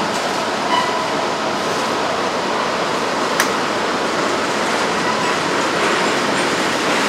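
Freight train cars, a tank car then covered hoppers, rolling past with a steady noise of steel wheels on rail. There is a single sharp click about three and a half seconds in.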